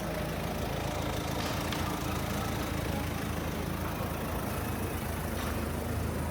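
A motor vehicle's engine idling steadily, a low hum, with faint clicks about a second and a half in and again near the end.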